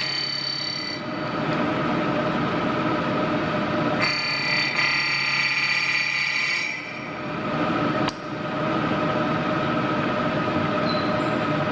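K2 vertical knee mill running, a steady machine noise with a metallic whine made of several fixed pitches. It grows brighter and louder for a few seconds from about four seconds in, then settles back, with one sharp click about eight seconds in.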